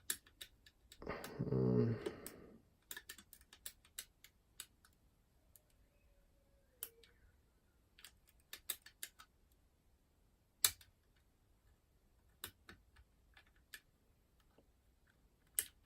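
Small irregular metallic clicks and ticks of a curtain pick and tension tool working the levers inside an ERA Fortress five-lever curtain mortice lock, a few of them sharper than the rest. A short spoken word about a second in.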